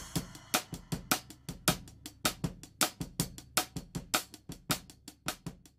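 Drum kit playing a steady, fast beat, about four hits a second.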